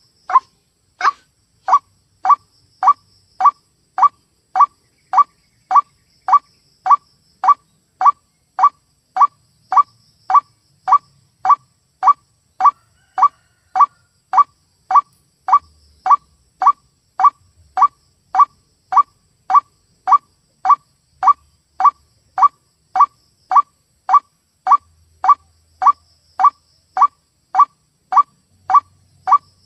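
White-breasted waterhen (ruak-ruak) call recording used as a bird-trapping lure: a short, loud note repeated very evenly about twice a second, with a brief pause near the start.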